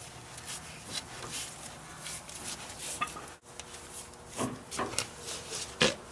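Wrench and tie rod scraping and clicking as the stock inner tie rod of a Ford Raptor is turned off the steering rack, with a few sharper metal clanks near the end as it comes free.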